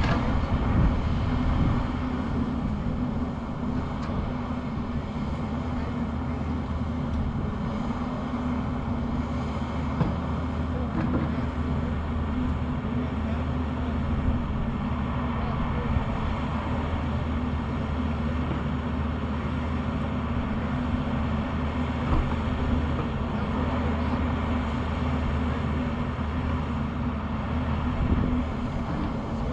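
Excavator's diesel engine running steadily, with a few light knocks along the way.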